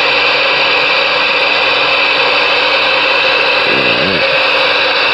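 Superstar SS-158FB4 ten-meter radio's receiver hissing steadily with open-squelch static through its speaker, with a brief faint warbling tone about four seconds in.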